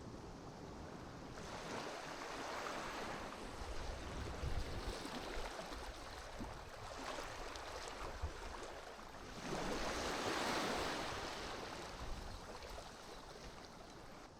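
Sea waves washing onto the shore, as two swells of surf, the second louder about ten seconds in.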